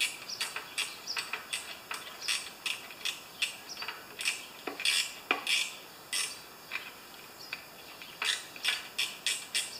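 Small quarter-inch ratchet clicking in short back-and-forth strokes as a bolt on the Briggs & Stratton engine is tightened, about two to three clicks a second. The clicking stops briefly past the middle and comes back quicker near the end.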